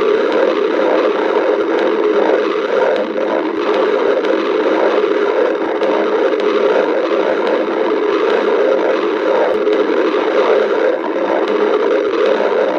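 Hungry stomach growling: a steady, unbroken rumble with a churning texture.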